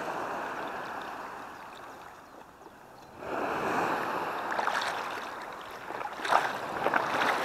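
Shallow sea water sloshing and lapping close by, swelling, easing off about halfway through, then swelling again, with a few sharp clicks near the end.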